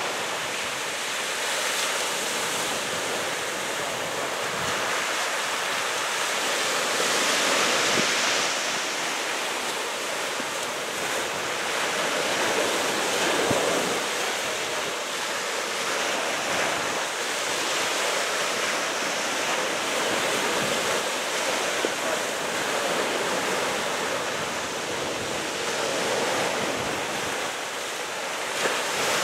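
Steady rushing noise of waves and wind, swelling a little now and then, with no ship's engine standing out.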